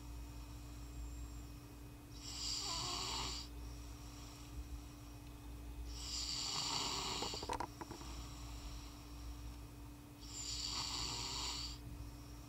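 A person snoring in a slow, regular rhythm: three long snores about four seconds apart, over a faint steady hum.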